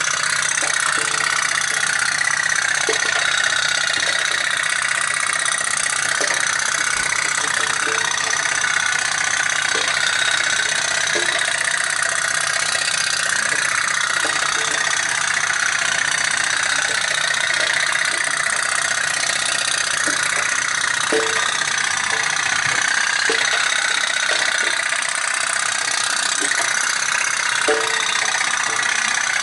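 Pot-pot toy boat's flame-heated steam engine running, its rapid popping blurring into a fast, steady putt-putt buzz with no change in level.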